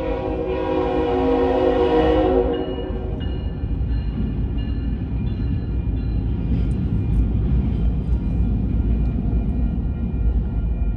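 Locomotive horn sounding one long blast of about two and a half seconds, then the low rumble of a train rolling through the crossing, with steady high ringing tones above it.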